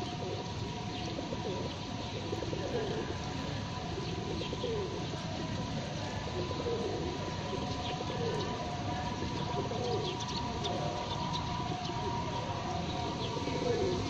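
Feral pigeons cooing, low falling coos repeating every second or two, over a steady two-note hum.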